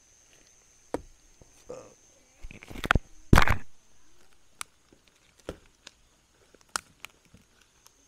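Footsteps crunching and rustling through dry leaf litter and brush on a forest floor: scattered sharp steps and twig snaps, with a louder burst of rustling crunch about three seconds in.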